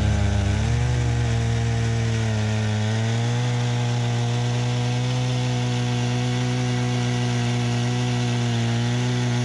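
Two-stroke chainsaw fitted in a Granberg Alaskan chainsaw mill, ripping lengthwise through a white pine log and working steadily under load. Its pitch sags twice in the first few seconds, then holds.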